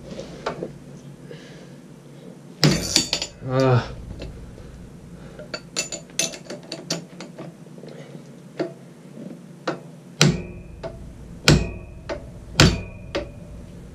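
Mallet blows on a wrench braced on a tight alternator rotor bolt that will not break loose. There are a couple of knocks about three seconds in and lighter clicks and taps after them, then three hard blows near the end, each leaving a short metallic ring.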